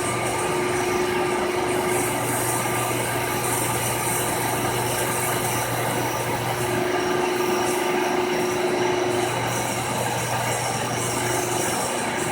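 Milling machine running a fly cutter across the face of an intake manifold, a steady machine noise with a low hum and a faint whine that fades in and out.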